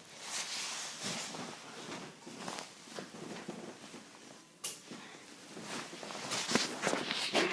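Irregular rustling and knocking handling noise as a tablet is set down and moved about, with a sharp click about four and a half seconds in and busier rustling near the end.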